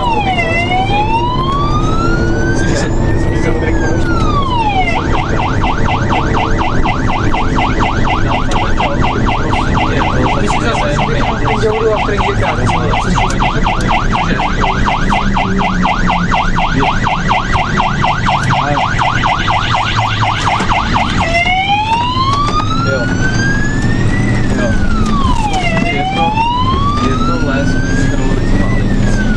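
Fire engine's siren heard from inside the cab. It starts as a slow wail rising and falling every few seconds, switches about five seconds in to a fast warble, and goes back to the slow wail about two-thirds of the way through. The truck's diesel engine runs underneath.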